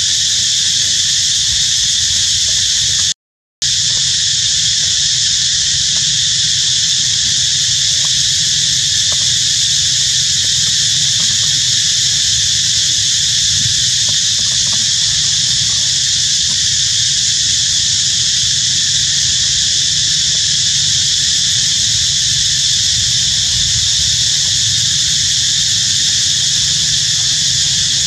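Loud, steady insect chorus, shrill and unvarying, over a low rumble. It cuts out completely for about half a second a few seconds in.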